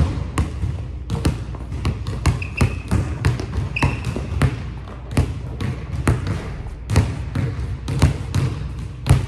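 Basketball being dribbled on a hardwood gym floor: steady bounces, about two to three a second, echoing in a large hall. Twice near the start there is a short high squeak of sneakers on the floor.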